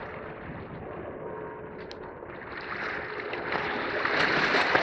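Sea water washing against the rocks of a breakwater, a steady wash that swells louder about three seconds in.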